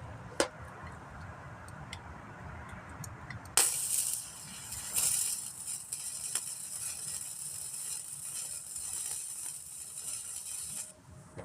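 Gasless flux-core wire-feed welder arc running for about seven seconds: a steady crackling hiss that starts a few seconds in and cuts off abruptly near the end. A single sharp click comes just before it.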